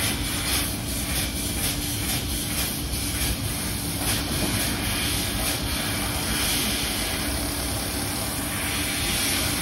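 Laser cutting machine cutting aluminium sheet: a steady machine hum with a hiss over it. The hiss pulses rhythmically for the first four seconds, then runs even.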